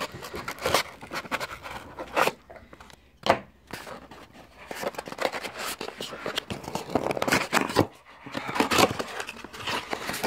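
Cardboard shipping box and its packaging being handled: irregular scraping and rustling with small knocks, and one sharp knock about three seconds in.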